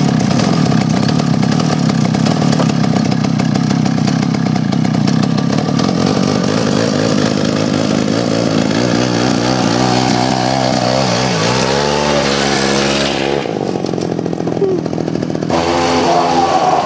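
Two-stroke chainsaw engine powering a home-built drift trike, running at high revs. About halfway through its pitch starts to waver and slide up and down. Near the end the higher part of the sound drops away for a couple of seconds, then comes back.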